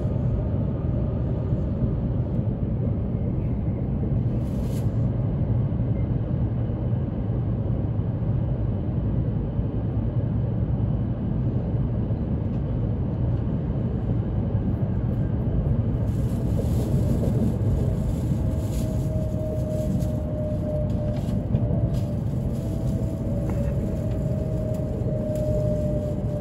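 Steady low running rumble of an E7/W7-series Hokuriku Shinkansen train heard inside the passenger cabin. About two-thirds of the way through, a hiss rises over it. Near the end a faint tone glides slowly down in pitch as the train slows for its stop.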